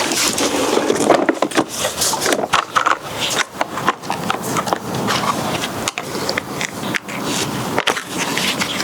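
Irregular scraping and rubbing with many short clicks and knocks, like hand work on hard plastic and material.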